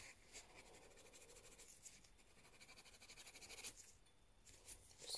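Faint, light scratching of an applicator working thick glitter nail gel, with a brief pause about four seconds in.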